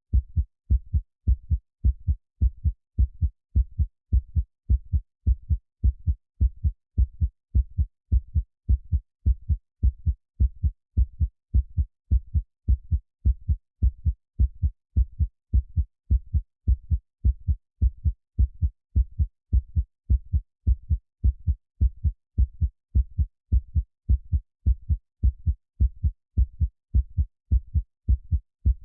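Heartbeat sound, a steady, even rhythm of low, deep thumps that repeats without change.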